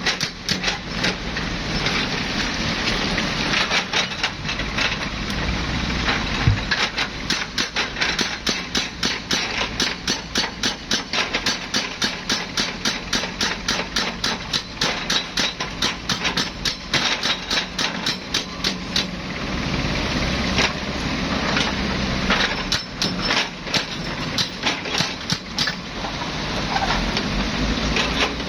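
Heavy diesel machinery running with a low rumble, overlaid by a regular metallic clanking knock about three times a second.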